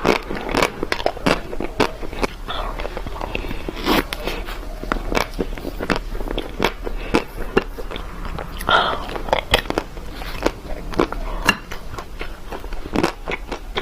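Close-miked eating of ice cream: repeated bites and crunchy chewing, with many sharp, irregular clicks and crackles.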